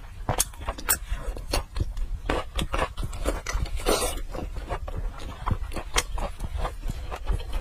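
Close-miked wet eating sounds: a person chewing and smacking her lips with many irregular clicks, and a louder slurp about four seconds in as the food goes into her mouth.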